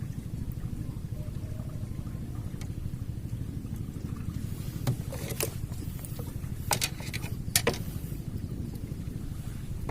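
Steady low rumble, with a few sharp knocks a little past halfway.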